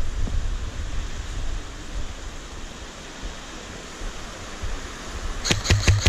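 Wind buffeting the microphone with a steady rush and low rumble. Near the end comes a quick string of sharp cracks, airsoft gunfire.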